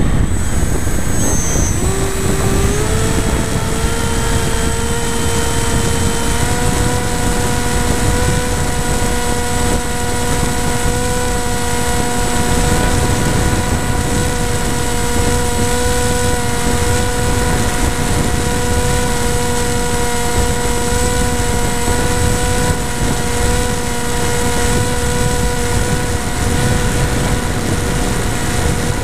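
FPV model airplane's motor and propeller heard from the onboard camera: a steady whine over heavy wind rush. The pitch dips at the start, climbs back over the next few seconds, then holds steady.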